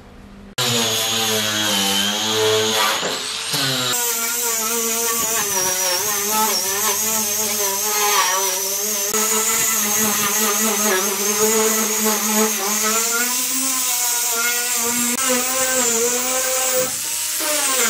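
Electric angle grinder with a red abrasive disc running against rusty sheet-steel car body panels, stripping off rust and burnt paint. It starts suddenly about half a second in, and its whine wavers in pitch as the disc is pressed and moved over the metal.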